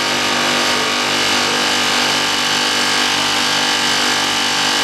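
Air-conditioner compressor of a homemade ice-making refrigeration unit running steadily, with a constant hum and an even hiss.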